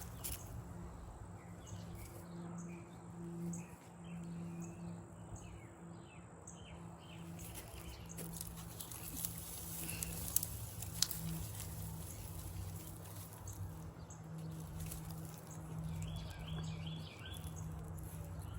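Birds chirping, including a quick run of short chirps near the end, over a steady low hum. There are two sharp clicks about halfway through.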